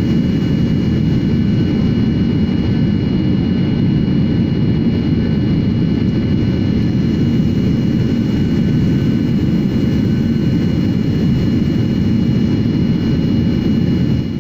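Steady cabin noise of a jet airliner in flight: a deep, even rumble of engines and rushing air, with a faint steady whine above it.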